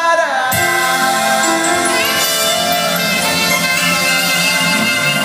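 Live band playing instrumental music, with a horn section of trumpet, trombone and saxophone holding long notes over electric bass and drums. The held notes slide down at the start, and the bass and drums come in about half a second in.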